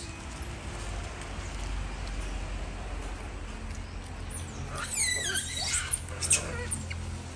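Macaques squealing: a quick run of high-pitched, falling shrieks about five seconds in, over a low steady rumble.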